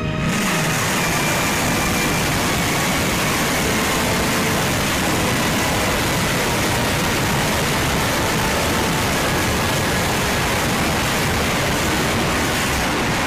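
Salvo of BM-21 Grad multiple rocket launchers firing: a loud, continuous rushing roar as rockets launch in rapid succession.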